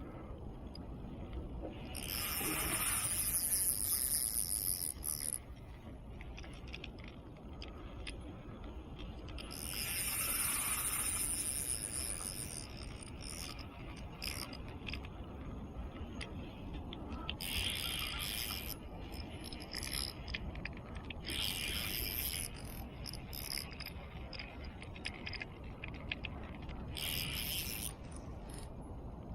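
Fishing reel whirring and clicking in five bursts of one to three seconds, with pauses between them, while a large fish is being played.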